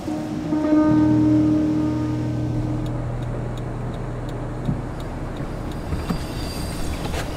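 A car running with a steady hum, loudest about a second in and slowly easing off, with a few faint light clicks in the latter half.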